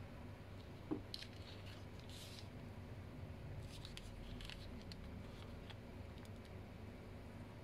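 Faint handling sounds of small plastic keychain figures: a thin clear plastic bag crinkling and light clicks of small parts, with a soft knock about a second in.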